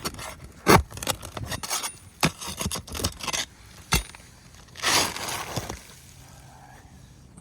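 Irregular scraping, scuffing and knocks on asphalt roof shingles, with a longer scrape about five seconds in, then quieter.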